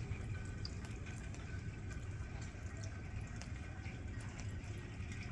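Outdoor winter-storm ambience: a steady low rumble with many light, scattered ticks, like wet precipitation or drips landing close by.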